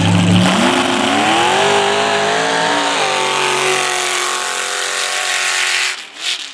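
Pickup truck engine accelerating hard off the drag-race line: the pitch climbs for about three seconds, drops suddenly at a gear change, then climbs again more slowly before the sound falls away sharply near the end.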